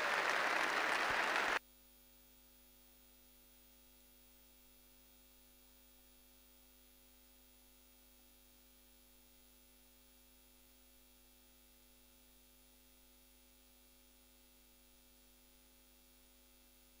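Audience applauding, cut off abruptly about one and a half seconds in; after that near silence with only a faint steady hum.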